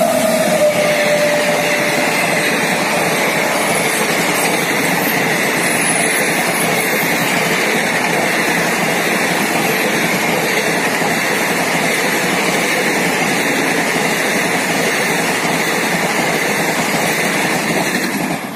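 Express passenger train rushing past at speed behind a WAP-7 electric locomotive: a loud, steady roar of coach wheels on the rails and rushing air, with a tone falling in pitch in the first second as the locomotive goes by.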